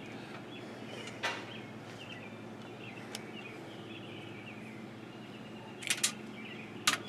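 Birds chirping over steady outdoor background noise, with a few sharp clicks from a plastic two-prong plug being worked with a screwdriver: one about a second in, then a couple near the end as the plug's insert is pushed out from the back.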